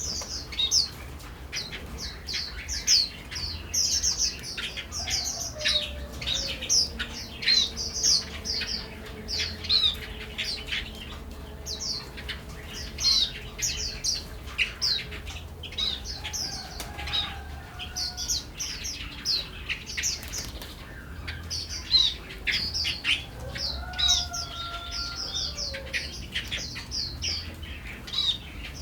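Small birds chirping, a dense run of short high chirps several a second, with a few lower, longer gliding calls now and then.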